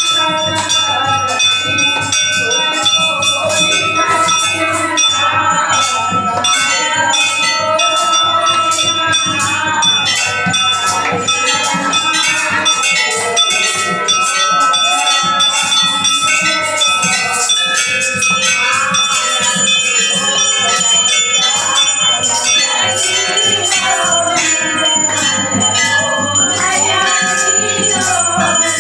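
Several hanging brass temple bells rung continuously, with hand clapping and group devotional singing.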